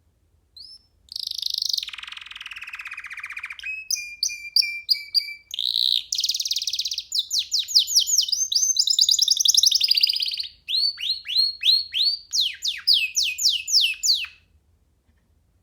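Canary singing one long, varied song: a buzzy roll that falls in pitch, then runs of rapid repeated chirps and sweeping trilled notes, stopping about a second before the end.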